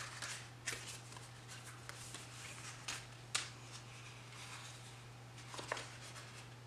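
Sticker sheets being flipped through and handled: soft paper rustles with a few sharp snaps and taps as pages turn, over a faint steady hum.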